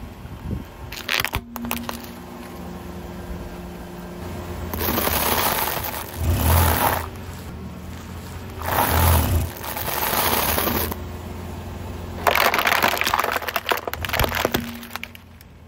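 Car tyre rolling over and crushing a series of brittle objects on asphalt. There are sharp cracks from a plastic computer mouse breaking, then several loud crunching stretches as dry instant noodles and a bag of small plastic items are flattened.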